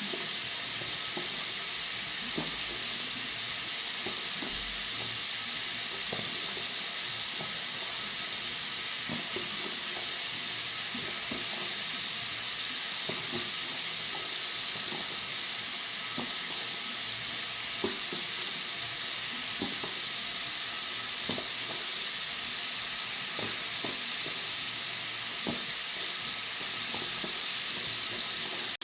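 Water running steadily from a bathroom sink tap: an even, fairly high-pitched hiss of water, with small irregular splashing ticks under it.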